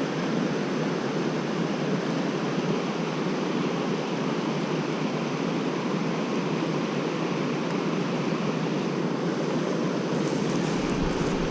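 Mountain stream water rushing, a steady, even noise. A low rumble and a few faint clicks come in near the end.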